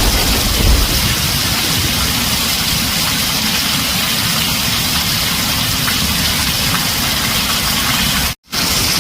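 Heavy rain drumming steadily on a tin roof as an even hiss, with a low rumble of thunder dying away in the first second. The sound cuts out for a split second near the end, then resumes.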